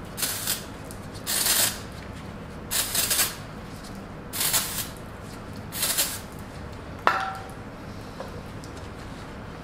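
Aerosol brake cleaner sprayed in five short hissing bursts, about a second and a half apart, flushing old grease out of a wheel bearing. A single sharp metallic clink about seven seconds in.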